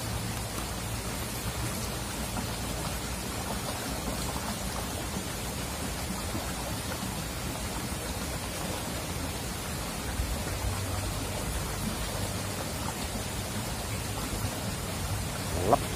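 Shallow stream rippling steadily over stones, with a short rising squeak near the end.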